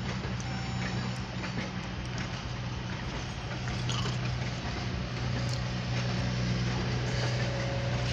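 Oil Creek & Titusville passenger coaches rolling past: a steady rumble and hiss of wheels on the rails with a constant low hum underneath, heard from inside a car through the windshield.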